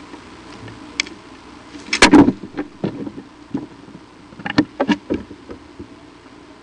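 Sticks and branches of a bald eagle nest cracking and rustling as the eagle moves across it and leaves: a loud cluster of sharp cracks about two seconds in, then a second, shorter run of knocks and rustles a couple of seconds later, over a steady faint hiss.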